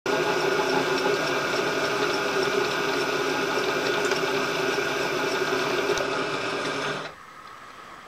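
Vertical milling machine's spindle and motor running steadily with a whine of several fixed tones, stopping about seven seconds in.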